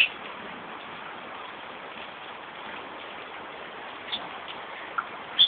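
Steady hiss of rain falling, with a few short high chirps near the end.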